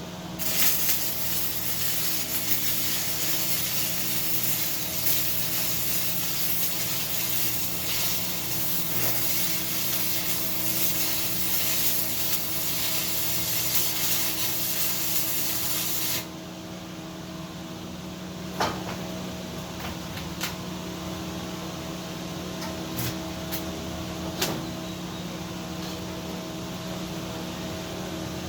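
Arc welding steel: a continuous crackling sizzle as the plate is tacked, cutting off abruptly about sixteen seconds in. A steady low hum runs underneath, with a few sharp clicks after the welding stops.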